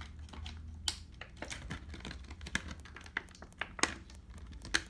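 Irregular small clicks and crinkles from plastic action figures and their packaging being handled, over a low steady hum.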